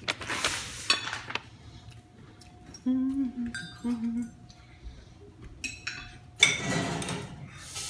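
Dishes and cutlery clinking in scattered short knocks, with a loud rush of noise about six and a half seconds in that lasts just over a second.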